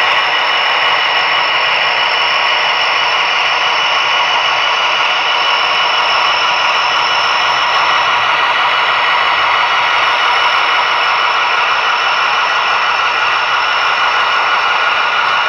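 HO scale model diesel locomotive running slowly along the track: a steady engine-like sound with a whirring, rattling undertone that holds at one pitch and level throughout.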